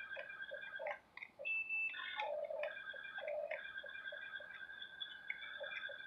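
Small electric motors of a toy RC excavator whining in stop-and-start runs, with light ticking from its plastic gearing.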